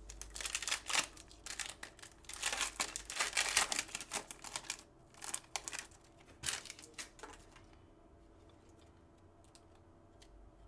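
Crinkling, clicking and rustling of trading-card packs and cards being handled and torn open. It stops about seven and a half seconds in.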